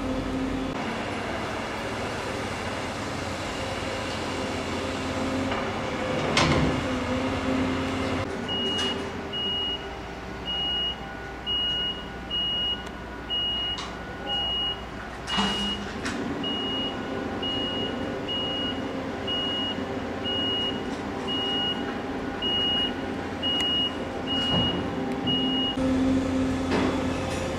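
A construction vehicle's reversing alarm beeping steadily, a high beep a little more than once a second, over the low running of an engine. The beeping starts about a third of the way in and stops shortly before the end, and a couple of sharp metallic knocks sound along the way.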